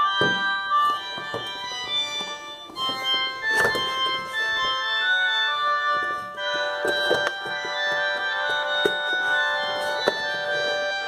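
A Siemens M55 polyphonic ringtone playing: a synthesized organ- and keyboard-like melody over short percussive hits, changing character about six seconds in.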